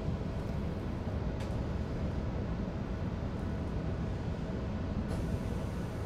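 Steady low rumble of a Tokaido Shinkansen N700-series train, heard inside the passenger cabin as it runs into a station stop.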